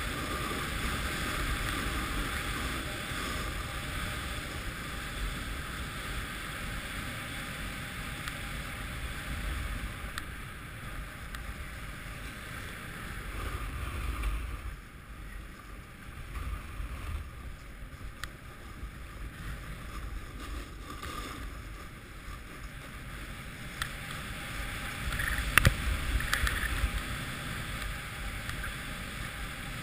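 Snowboard sliding and carving over groomed snow: a steady scraping rush with wind on the microphone, quieter for a while in the middle. A couple of sharp knocks come about 25 seconds in.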